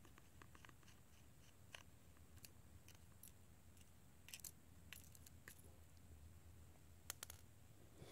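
Faint, scattered small metallic clicks and ticks of a small Phillips screwdriver turning out the tiny screws of an iPhone 6's battery-connector plate, a few sharper clicks about four and a half and seven seconds in, over a low steady room hum.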